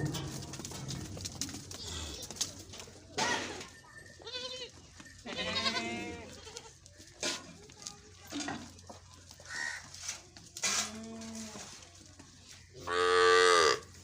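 Goats bleating: several separate calls, each under a second long, with the loudest one near the end.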